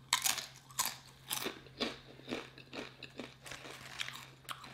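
Close-miked crunching of a salsa-dipped tortilla chip being bitten and chewed, about two crunches a second, loudest at the first bite and growing softer as it is chewed down.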